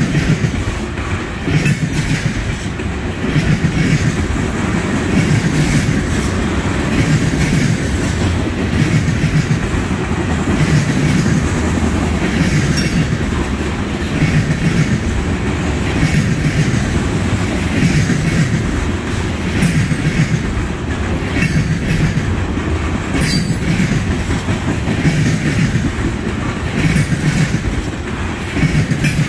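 Freight train of loaded trash-container cars rolling past close by, its wheels clattering over the rail joints in a steady rhythm about once a second.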